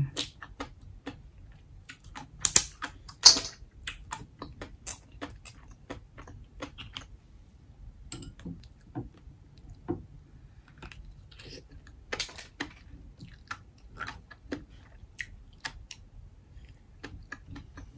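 Close-up eating of steamed black mussels: irregular clicks and clacks of the shells being handled and opened, mixed with chewing and lip smacks. The loudest clicks come a few seconds in.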